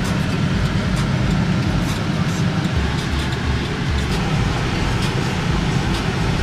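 Steady road and engine noise of a moving car, heard from inside the cabin as a low, even rumble.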